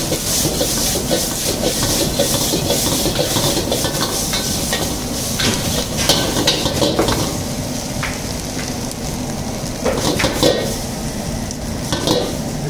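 Metal ladle scraping and knocking against an iron wok in quick repeated strokes while egg, onion, tomato and green chilli sizzle in hot oil.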